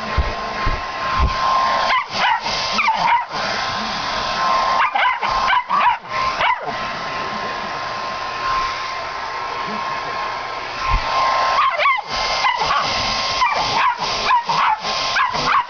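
A hair dryer running steadily with a high whine, while a pit bull barks and yelps at it in bursts. The dog falls silent for a few seconds in the middle, leaving only the dryer, then starts barking again near the end.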